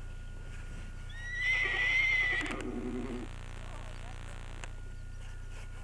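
A pony whinnying once, starting about a second in: a high, level call that drops into a lower, shaky ending and stops about two seconds later.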